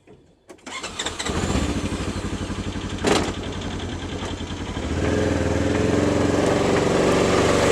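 A motor vehicle engine starts up about a second in and runs with an even pulsing beat. A sharp knock comes about three seconds in, and the engine runs louder and steadier from about five seconds in.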